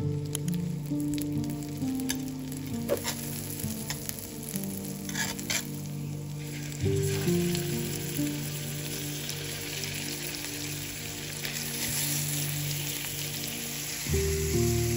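Food sizzling as it fries in butter in a hot pan. There are a few small clicks in the first half, and the sizzle grows clearly louder from about halfway in.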